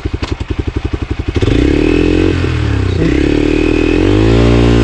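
Hero XPulse 200's single-cylinder engine running at low revs with an even, rapid pulse. About a second and a half in, the revs pick up into a steady drone that rises and dips, climbing higher near the end as the bike pulls along the trail.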